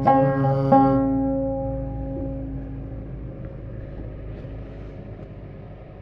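Long-necked plucked lute sounding its last notes, struck at the start and again just under a second in, the strings ringing and dying away over about two seconds. A faint low rumble is left after them.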